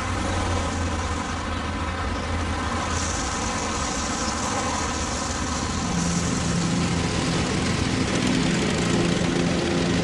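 Small engines of lawn and garden machinery, among them a ride-on lawn mower, running steadily. About three seconds in a high hiss joins, and about six seconds in a new engine hum takes over.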